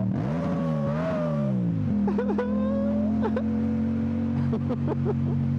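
Yamaha MT-07's parallel-twin engine running under the rider. Its revs drop, pick up briefly and drop again in the first two seconds, then hold steady.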